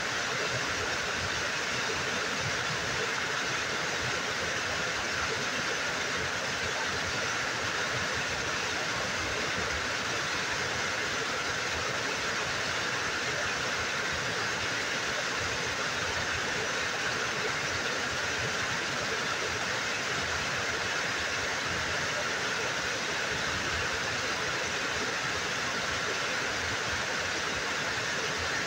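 Small waterfall pouring steadily over a rock ledge and splashing into a pool below.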